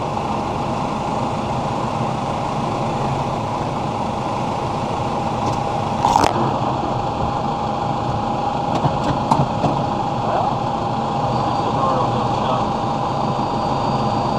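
Case IH Farmall 110C tractor's diesel engine running steadily, with a sharp click about six seconds in and a few lighter ticks a few seconds later.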